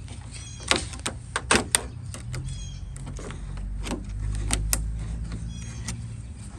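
Flathead screwdriver clicking and scraping against the lock rod's retaining clip and lever inside a pickup truck door, a dozen or so sharp clicks and taps at uneven intervals, some with a short metallic ring.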